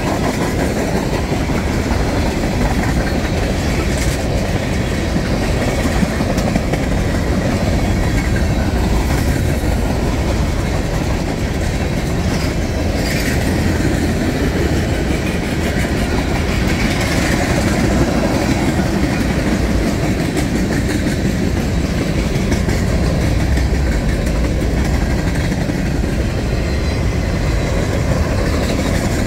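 A mixed freight train of tank cars, boxcars and covered hoppers rolling past: a steady rumble of steel wheels on the rails, with a few clicks over the rail joints.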